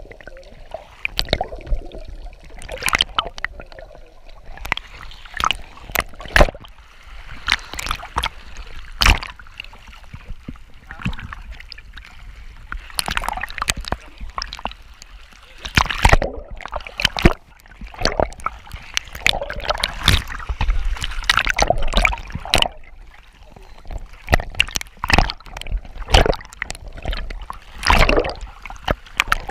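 Scuba diver breathing underwater through a regulator: exhaled air bubbles out in gurgling bursts every few seconds, with short knocks and rubbing of the camera housing between them.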